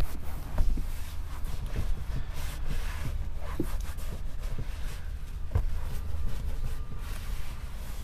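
Microfiber towel wiping excess cleaner off a leather car seat: soft, irregular rubbing and light scuffs over a low, steady rumble.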